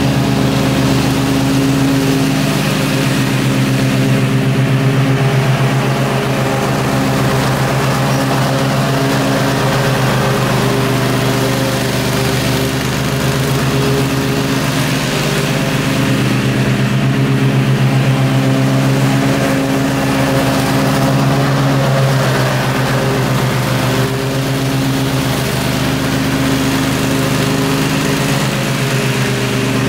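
Gravely zero-turn riding mower's engine running steadily as the mower cuts thick grass, a continuous low drone with small rises and falls in level as it works across the lawn.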